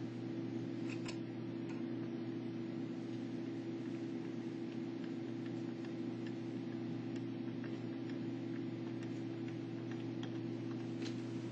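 Faint, scattered small clicks of a Phillips screwdriver driving screws into the PC housing, over a steady low hum.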